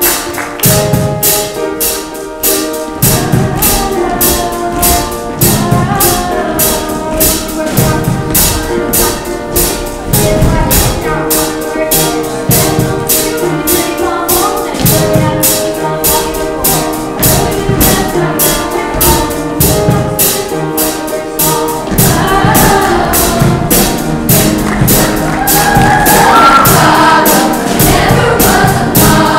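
Show choir singing together over upbeat accompaniment with a steady beat; the voices grow more prominent about three-quarters of the way through.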